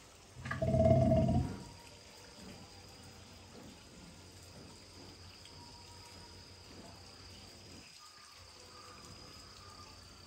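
A takin giving one short, low bellow about half a second in, lasting about a second.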